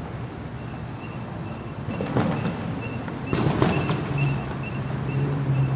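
Distant fireworks booming over a steady city rumble: one burst about two seconds in and a louder cluster a second later. A crosswalk signal ticks faintly and steadily throughout, and a vehicle's low engine drone comes in near the end.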